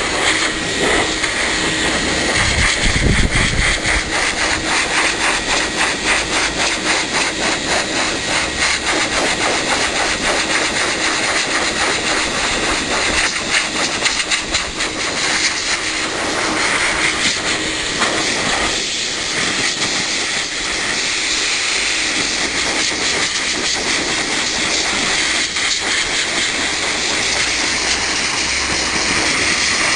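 High-velocity dog dryer (blaster) running steadily, a loud rush of blown air with a faint steady motor whine and a rapid fluttering pulse in the airflow.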